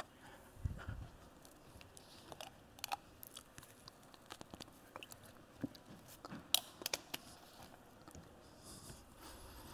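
Faint scattered clicks and rustles of handling noise on the presenter's microphone, the sharpest about a second in, near three seconds and past six seconds, over quiet room tone.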